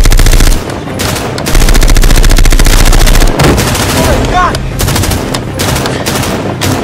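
Automatic rifle fire from an AK-pattern rifle: a short rapid burst at the start, a longer sustained burst from about one and a half to three and a half seconds in, then scattered single shots.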